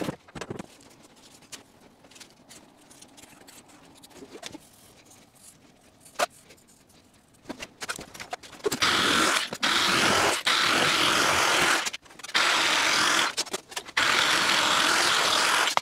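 Light handling clicks, then from about nine seconds in a corded electric drill driving a sheet-metal cutting attachment runs in four bursts of about a second and a half each, cutting a curved piece out of sheet steel.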